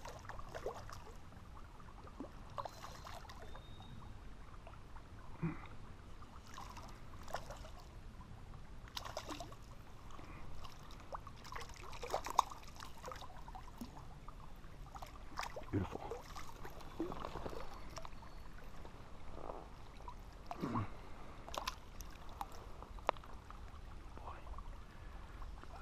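Small irregular splashes and drips in shallow water as a hooked rainbow trout is handled and released by hand at the stream's edge.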